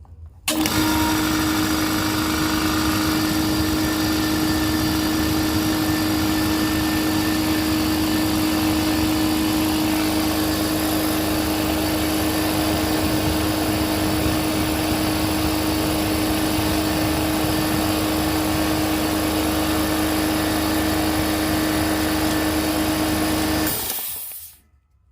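Air compressor starting up and running steadily with a strong, even hum as it pumps up its tank, then shutting off near the end.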